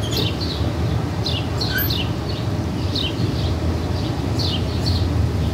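A songbird calling over and over, a short falling chirp every second or so, over a steady low rumble.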